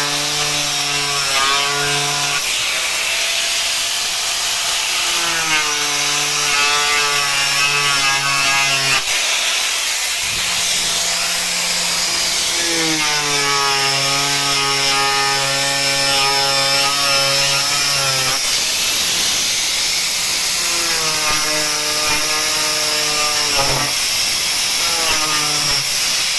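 Angle grinder cutting through a washing machine's plastic tub. The motor whines steadily over a rasping cut, and its pitch shifts as it comes under load. It breaks off briefly about a third of the way in, then starts again.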